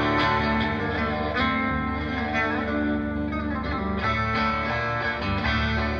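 Live electric guitar played through an amplifier: a struck chord rings out, then picked notes sound over a sustained low drone.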